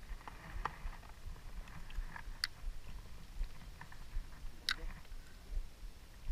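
Fishing rod and spinning reel being handled in a small boat: two sharp clicks, about two and a half and nearly five seconds in, over a low, uneven rumble.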